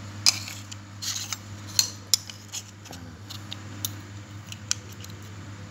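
Steel electric-planer blade clicking and clinking against its sharpening jig as it is handled and fitted into the jig's clamp: a string of irregular sharp metallic clicks over a steady low hum.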